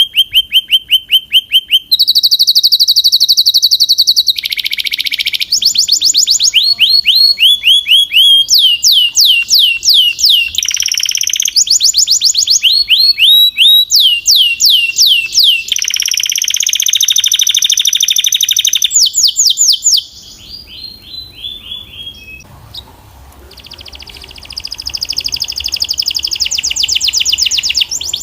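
Canary singing a long song of fast trills: each phrase is a rapid run of one repeated note, switching to a new pitch every one to four seconds. About two-thirds of the way through the song drops quieter for a few seconds, then loud trilling resumes.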